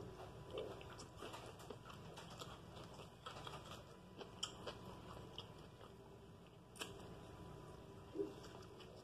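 Faint, close chewing and mouth sounds of a person eating a homemade Italian beef sandwich: soft wet smacks and small clicks throughout, with a bite into the sandwich just after 8 seconds in.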